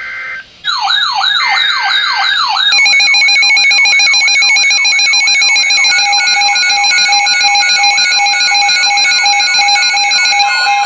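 Electronic siren sounding a fast yelp: rapid repeating pitch sweeps, about three a second. About two and a half seconds in, steady electronic alarm tones join and layer over it.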